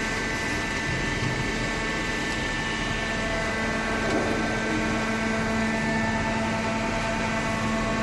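Hydraulic cardboard baler running: a steady machine hum with a constant whine, even in level throughout.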